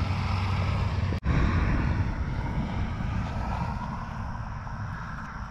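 Steady low engine drone, like a passing vehicle or plane, slowly fading, with a brief dropout about a second in.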